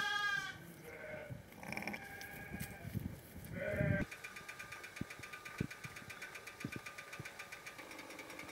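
Sheep bleating three times, short wavering calls. About four seconds in they give way to a faint steady whirr with fast, even ticking.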